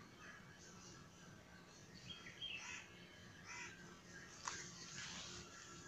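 Near silence: faint room tone with a few faint, short bird calls from about two seconds in and a faint tick near the end.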